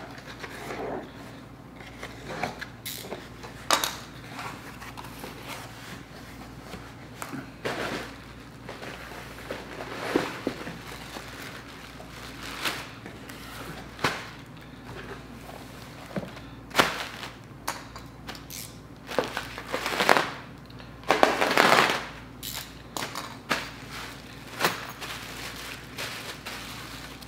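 Packing tape on a cardboard box slit with a box cutter, the flaps pulled open, and plastic wrapping crinkling as wrapped parts are handled. Irregular crackles and rustles, loudest in a burst of crinkling about three-quarters of the way through.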